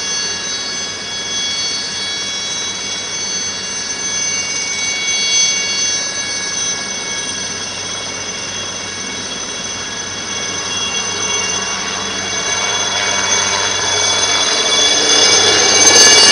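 Alouette III helicopter's turboshaft engine running with a steady high-pitched turbine whine over a low rotor hum during takeoff. It grows steadily louder over the last few seconds as the helicopter lifts off and comes overhead, with a rushing noise building near the end.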